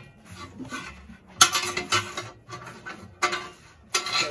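Metal clanking and scraping as a steel mounting strap is worked around an air tank against the truck frame: about four sharp clanks, the loudest about a second and a half in, with rubbing and rattling between them.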